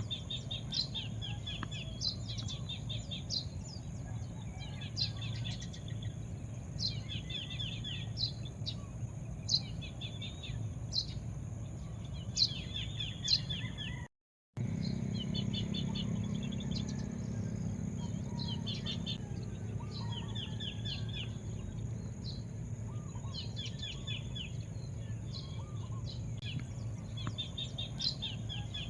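Songbirds singing. One repeated phrase, a sharp high note followed by a short rapid trill, comes every second or two over a steady low rumble. The sound cuts out completely for a moment about halfway through.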